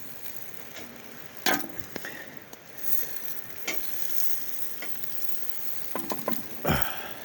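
Food sizzling in a pan over a campfire, with a few knocks and scrapes of a cooking utensil against the pan, the loudest about one and a half seconds in and near the end.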